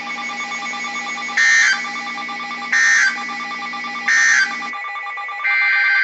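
Emergency Alert System SAME data bursts, the loud 'boop bricks': three short bursts about 1.4 seconds apart, the end-of-message code that closes a flood warning. A longer burst begins about five and a half seconds in, the start of the next alert's header. A steady hum runs underneath.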